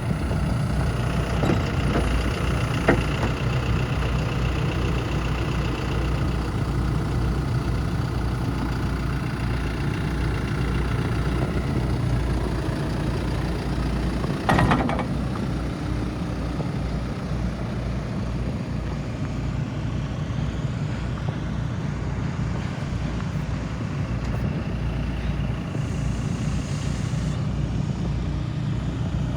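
John Deere 320P backhoe loader's diesel engine running steadily, with one sharp knock about halfway through.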